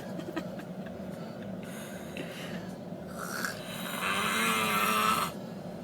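Snoring: a weaker snore about two seconds in, then a longer, louder snore from about four seconds in that stops sharply just after five seconds.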